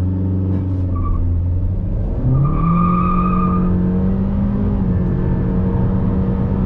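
Tuned 1.5-litre turbo four-cylinder of a Honda Civic Touring with CVT under full-throttle acceleration from a standstill. The engine note steps up in pitch about two seconds in and then holds steady as the CVT keeps the revs constant, with a brief higher whine or squeal just after.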